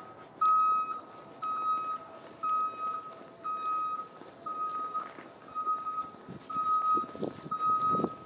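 Vehicle back-up alarm beeping as it reverses: one steady, high-pitched beep about once a second, each about half a second long.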